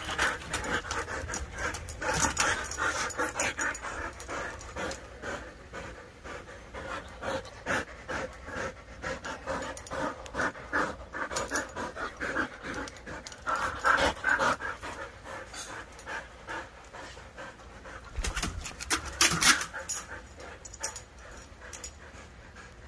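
Husky panting rapidly and unevenly close to the microphone, with a few louder runs of breaths midway and near the end.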